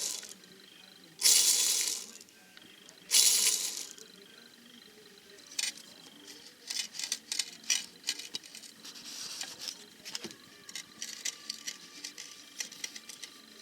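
Worn bearings from a 1975 Bultaco Sherpa being turned by hand, rattling: three loud rattles about two seconds apart, each fading out, then a run of irregular clicks and ticks. The rattle is the sign of bad bearings.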